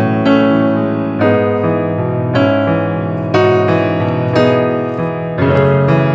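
Piano background music, with a new chord struck about once a second.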